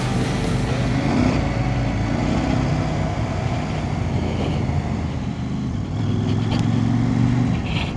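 KTM 890 Adventure R's parallel-twin engine running steadily at a low cruising speed on a gravel road, with wind and tyre noise.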